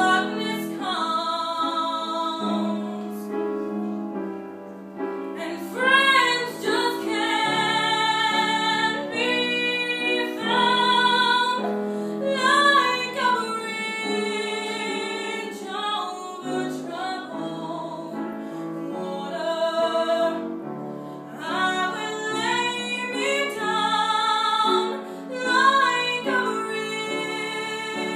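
A young woman singing solo to a live room, holding long notes with vibrato over steady musical accompaniment.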